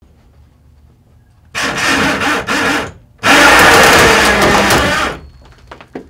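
Two long stretches of loud, harsh scraping noise from the knife lock test rigs as their steel wires load the folding knives, followed by a few sharp clicks near the end.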